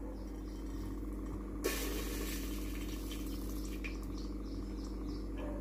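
Cooking oil pouring in a thin stream into the bottom of an empty stainless steel pressure cooker, a faint liquid trickle that grows a little louder about a second and a half in, over a steady low hum.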